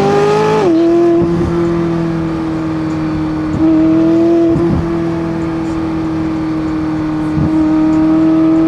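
McLaren 600LT's twin-turbo V8 running at steady cruising revs. The revs rise briefly and then drop sharply just under a second in, then hold steady, with a slight swell of throttle around four seconds in.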